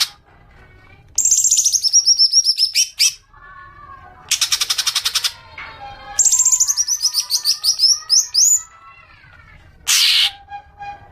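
Green leafbird (cucak ijo) singing: two long runs of rapid, high notes that step down in pitch, with short rattling chatters between them.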